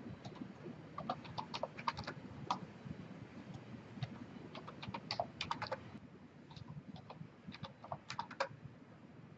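Computer keyboard keystrokes and mouse clicks, coming in short quick runs of sharp clicks about one to two seconds in, around five seconds in, and again near eight seconds in.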